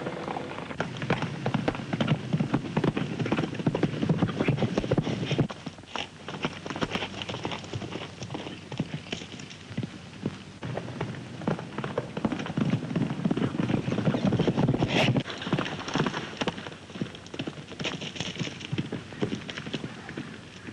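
Horses' hooves clip-clopping on a dirt trail, a band of riders. About five seconds in the hoofbeats drop to a quieter single horse, then grow louder again for a few seconds past the middle.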